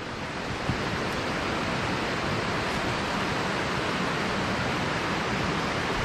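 Steady rushing of water spilling down from the dam's outflow and a small waterfall, an even noise with no pauses.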